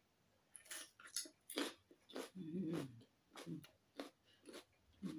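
A person biting and chewing a piece of raw red pepper: a series of crisp crunches with a few short low hums between bites.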